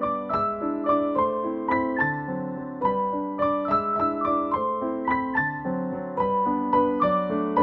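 Background piano music: a melody of struck single notes over sustained chords, played at an even pace.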